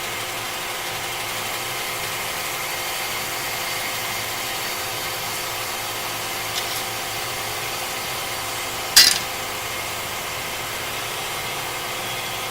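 Automatic turret lathe running steadily at the parting-off stage of its part cycle, a constant machine hum with several steady tones. A sharp clack about nine seconds in, with a fainter click a little earlier.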